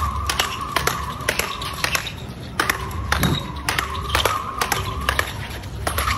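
Speedball rackets striking the tethered ball in a fast rally, sharp clicks about two to three a second, with a faint high steady hum between several strokes.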